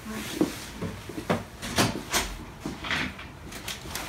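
Several scattered knocks and rustles, about five sharp ones over four seconds, as people move about and handle their bags and things.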